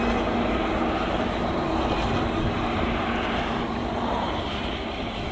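Württemberg T3 steam tank locomotive working a train away into the distance, its exhaust steam and running noise slowly fading.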